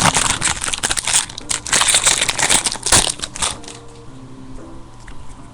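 Crinkling and crumpling of foil trading-card pack wrappers being handled and torn. The sound is loud for about the first three and a half seconds, then drops to quieter handling noise.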